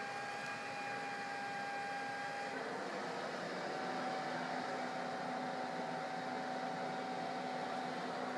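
Steady machine hum with a faint, constant whine whose pitch shifts slightly down about two and a half seconds in.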